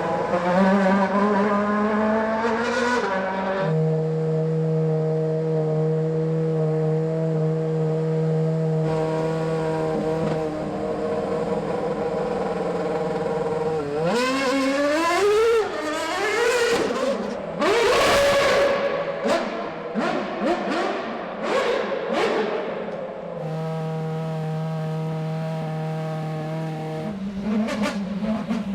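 Red Bull RB7 Formula One car's V8 engine revving up and sweeping through its gears, with sharp crackles among the revs, broken by long stretches of one steady engine note held at an even pitch.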